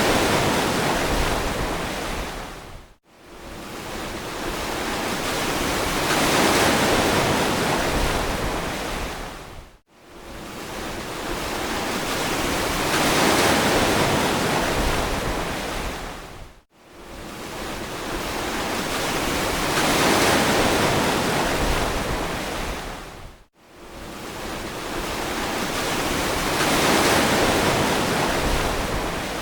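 Ocean surf washing on a beach, a steady rush that swells and fades about every seven seconds, each cycle broken by a brief, sudden dropout.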